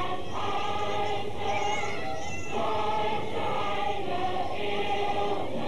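A choir singing a German song in slow, held phrases, with short breaks between the lines.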